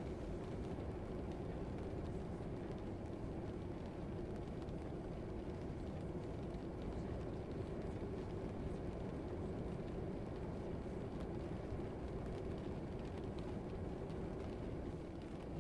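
Steady low classroom ambience: an even, constant rumbling hum with a faint steady tone, no distinct events.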